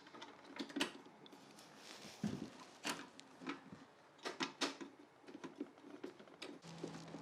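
Irregular clicks, clacks and knocks of parts being handled and fitted while setting up a cordless table saw. A low steady hum starts near the end.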